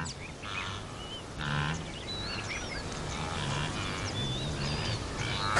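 A herd of blue wildebeest calling, with short grunting calls repeated about once a second. Small birds chirp faintly in the background.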